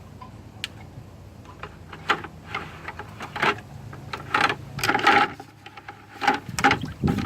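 Wooden sticks knocking, clicking and scraping against the metal parts of a ceiling fan's motor housing while fishing for a part. The clatter is irregular and gets busier from about two seconds in.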